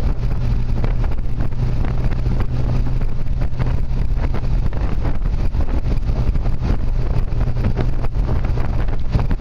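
Triumph sports car's engine running at a steady speed, a low continuous drone heard from inside the car, with wind buffeting the microphone and road noise over it.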